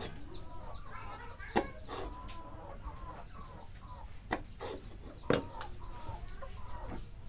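Chickens clucking, with rapid high chirping calls throughout. Three sharp clicks cut in, about a second and a half, four seconds and five seconds in.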